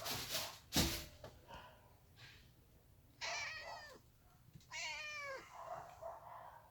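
A cat meowing twice, two drawn-out calls a second apart, the second falling in pitch. Before them, rustling and a sharp thump about a second in.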